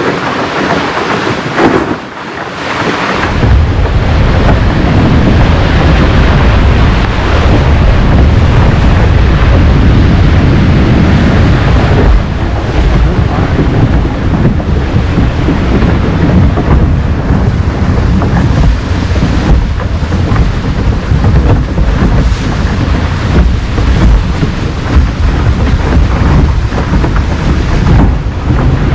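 Wind buffeting the microphone, a loud, gusting low rumble that sets in about three seconds in, over the running noise of a tour boat moving through brash ice.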